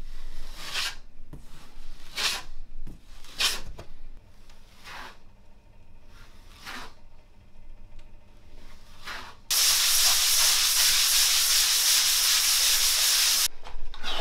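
A drywall taping knife scrapes joint compound across a wall in a series of separate strokes, about one every second and a half. About nine seconds in, a loud steady hiss cuts in sharply and runs for about four seconds, then stops.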